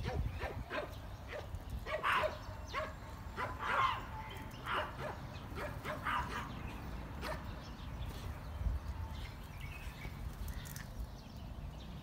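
Rose-ringed parakeets calling: many short, repeated squawks that thin out after about eight seconds.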